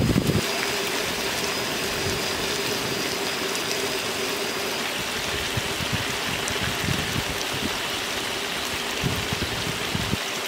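Fish braising in sauce in a wok over a wood fire: a steady sizzle and bubble, with a brief low thump at the start and a few soft knocks.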